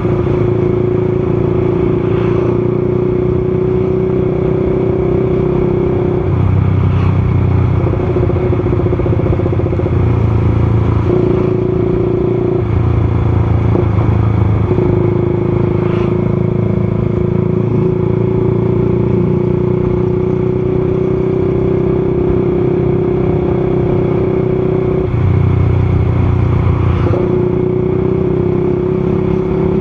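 Motorcycle engine running steadily under riding, its note briefly breaking and changing a few times. A low rumble swells and fades underneath.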